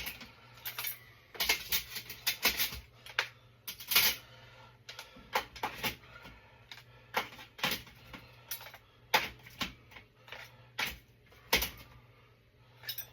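Dishes and cutlery clinking and clattering as they are taken out of a tiny dishwasher: an irregular string of sharp clinks and knocks.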